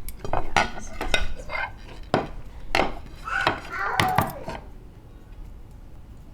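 Kitchen clatter: dishes and utensils knocking and clinking several times in quick succession, dying down about two thirds of the way through.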